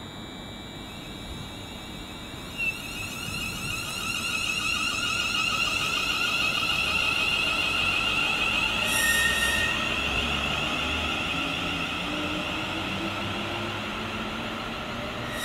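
Class 350 Desiro electric multiple unit pulling away, its traction equipment giving a steady high-pitched electric whine while a lower motor note rises slowly as it gathers speed. It grows louder through the middle.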